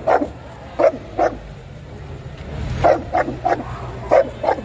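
A dog barking: about eight short, sharp barks, some in quick pairs and threes.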